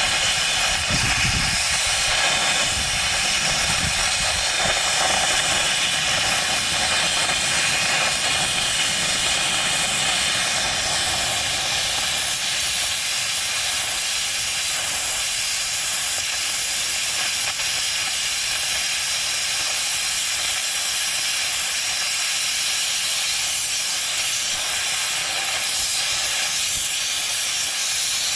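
Plasma cutter running continuously: a steady hiss of the arc and air jet as it cuts through the nut on a bulldozer blade's cutting-edge bolt.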